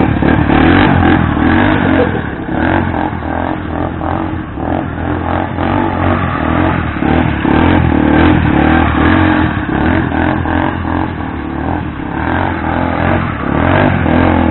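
Motorcycle engines running and revving, loud and continuous.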